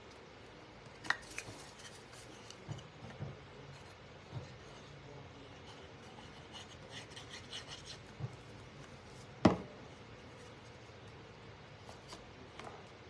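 Thin painted wooden cutouts being handled on a round wooden board: scattered light taps and knocks with some rubbing and scratching as pieces are lifted, glued and pressed into place. One sharper knock a little over two-thirds of the way through is the loudest sound.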